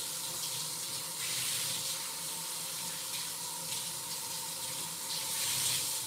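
Kitchen faucet running steadily into the sink as leafy greens are rinsed under it. The water grows slightly louder about a second in and again near the end.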